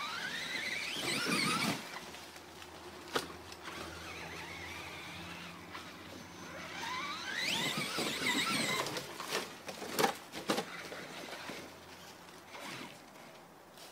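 Traxxas Summit RC truck's sensored Castle 2200 brushless motor whining up in pitch twice as the truck accelerates hard, with a sharp knock about three seconds in and a cluster of knocks about ten seconds in as the truck hits the ground and tumbles over.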